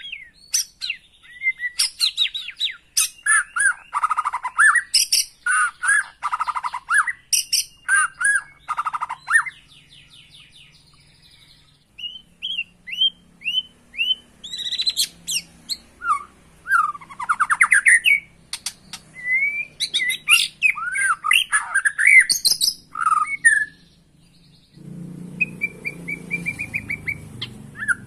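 White-rumped shama singing a loud, varied song of rapid whistles, trills and chattering phrases, pausing for about two seconds roughly ten seconds in. A low background rumble joins near the end.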